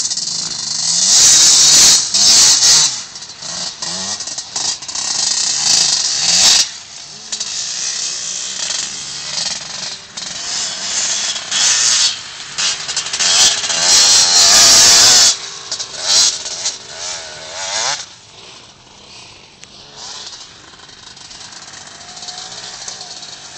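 Two-stroke KTM dirt bike run hard on loose sand, its engine note rising and falling with the throttle in loud surges. It drops to a distant drone after about eighteen seconds.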